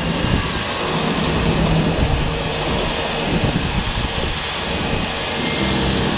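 Pressure washer comes on and runs steadily: a loud, even rush of pump noise and the high-pressure water jet hissing against concrete.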